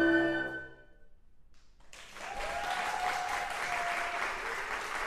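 Woodwind quintet's final held chord of flute, oboe, clarinet, horn and bassoon, fading out within the first second. After a short hush, an audience starts applauding about two seconds in, with a voice whooping over the clapping.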